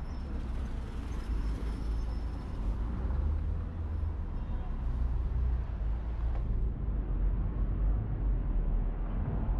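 City street ambience: road traffic going by with a steady low rumble, and faint voices.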